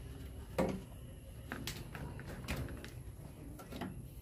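A handful of light, sharp clicks and taps, about six spread through, from handling electrical wires and a hand tool while preparing them for a splice.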